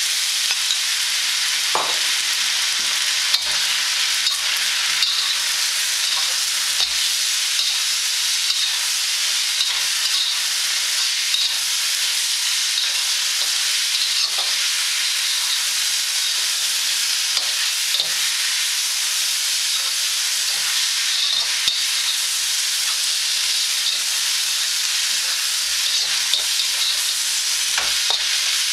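Noodles, pak choi and a soy-and-sesame sauce sizzling in a hot wok as they are stir-fried: a steady hiss with scattered light clicks and scrapes from the stirring.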